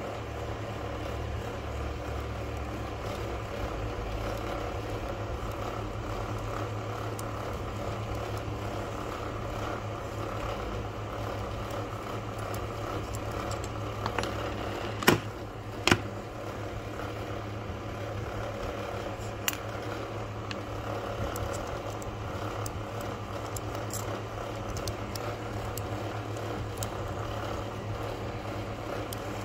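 Steady low background hum with faint handling noise as the metal parts of a machined aluminium lighter are turned in the hands; about halfway through, two sharp metallic clicks a second apart, with a few lighter ticks around them.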